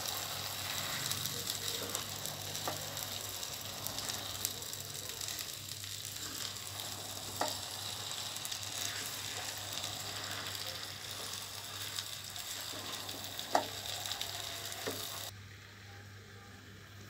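Suji halwa cooking in ghee in a wok, sizzling steadily as it is stirred and folded with a silicone spatula, with a few sharp knocks of the spatula against the pan. The sizzle cuts off suddenly near the end.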